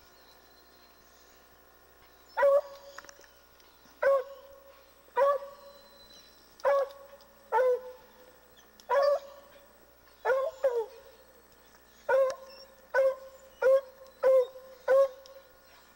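Treeing Walker hound barking steadily at a treed mountain lion, starting about two seconds in: a dozen or so short barks about a second apart, each dropping in pitch at its end.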